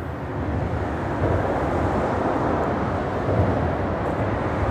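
Freeway traffic on the bridge overhead: a steady rumble of passing vehicles that swells a little about a second in.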